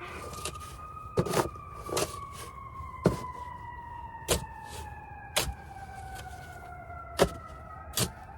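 An emergency-vehicle siren wailing in one long, slowly falling tone, with sharp knocks at irregular intervals about once a second over it.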